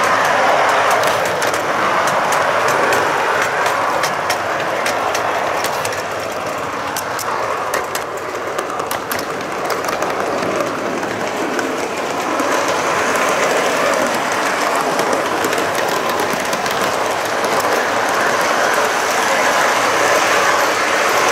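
Model train rolling along metal track, heard from on board a wagon at the rear: a steady rumble of wheels on rail with clattering over the rail joints. A run of light clicks comes in about a third of the way through.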